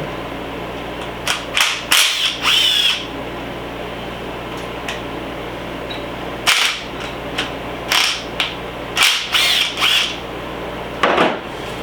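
A power tool driving in about half a dozen short bursts, some with a brief whine, as bolts are run out of the engine's timing cover. A steady low hum sits underneath.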